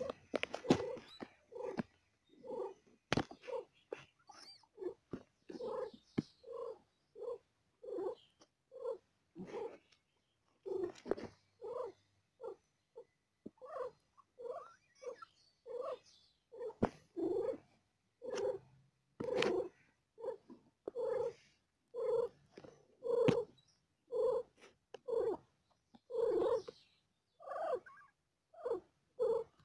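Mother cat purring close up in short, evenly paced pulses, about two a second, with brief gaps between them. A few sharp clicks come in between.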